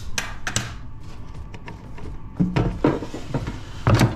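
Ninja dual-basket air fryer drawer being handled and slid shut: a few knocks and clatters, the loudest thud near the end as the basket goes home.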